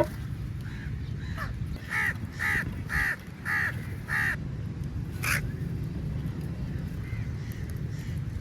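Crow cawing: a run of five harsh caws about half a second apart, then one louder caw a second later, with a few fainter caws around them, over a steady low rumble.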